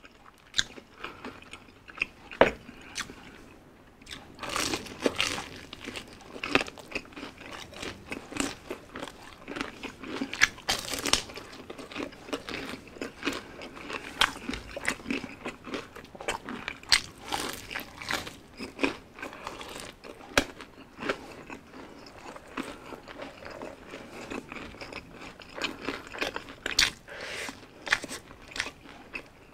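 Crispy fried chicken being bitten and chewed: irregular crunches of the fried coating with wet chewing in between.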